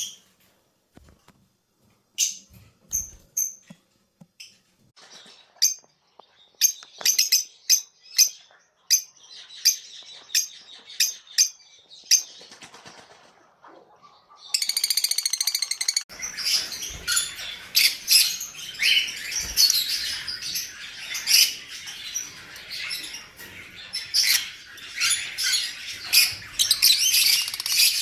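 Lovebirds chirping and squawking: separate sharp high calls at first, then from about halfway a dense, unbroken chatter of many calls.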